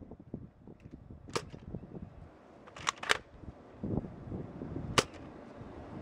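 Nerf N-Strike Maverick spring-powered dart blaster being cocked and fired: four sharp plastic snaps, two of them close together near the middle and the loudest about five seconds in. Wind rumbles on the microphone underneath.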